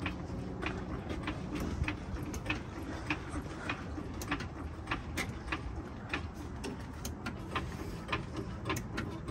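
A series of sharp mechanical clicks, roughly one and a half a second and slightly uneven, over a low steady hum.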